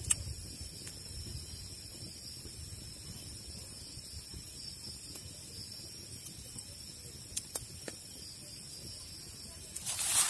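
Forest ambience with a steady high-pitched insect chorus and a low background rumble, broken by a few scattered clicks and a short rustling burst near the end.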